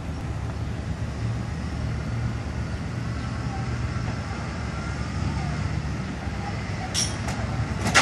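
Lincoln Town Car's V8 engine running low and steady as the car rolls slowly closer, with a brief hiss about seven seconds in.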